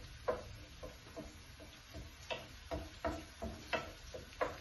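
Wooden spatula knocking and scraping against a frying pan while stirring herbs frying in oil, in a series of uneven knocks, two or three a second.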